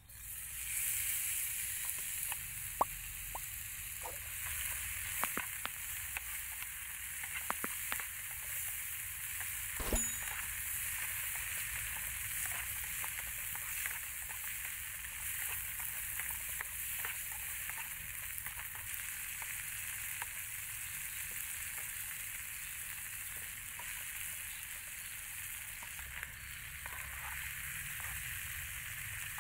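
Sliced meat dropped into hot oil in a small frying pan and sizzling, the sizzle starting suddenly at the first drop and then running steadily. A metal spatula stirring the food clicks and scrapes against the pan now and then, loudest about ten seconds in.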